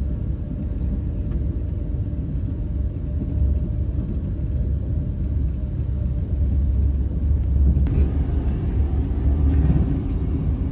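Passenger train running, heard from inside the carriage: a steady low rumble, with a brighter hiss joining about eight seconds in.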